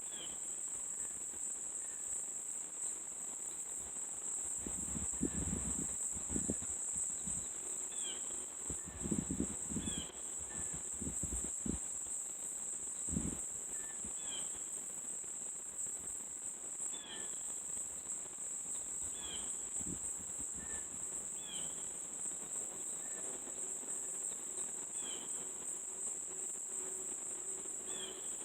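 Steady high-pitched chorus of insects that runs without a break. Short falling chirps repeat every second or two over it, and a cluster of low thumps falls between about five and thirteen seconds in.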